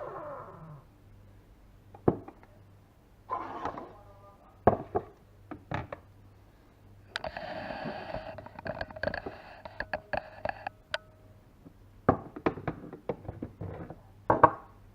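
A series of knocks and clinks of crockery and utensils being handled during cappuccino making, with a rushing hiss of about three and a half seconds carrying a steady tone in the middle.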